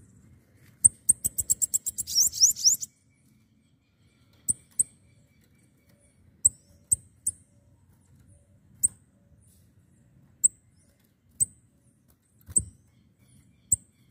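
Bananaquit (sibite) singing: a fast, high-pitched run of rising notes for about two seconds, then single sharp high chips roughly once a second. A few soft knocks come with the chips, the loudest near the end.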